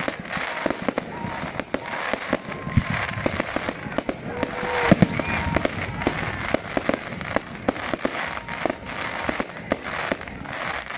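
Fireworks crackling and popping in a fast, irregular stream of sharp cracks.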